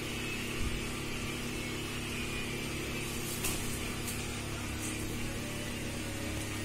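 A steady low mechanical hum, with a couple of faint knocks and rustles as foam boundary wedges are handled.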